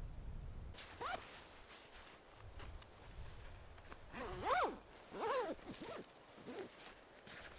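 A zipper being worked in short scratchy pulls, with a few short rising-and-falling cries over it, the loudest about halfway through.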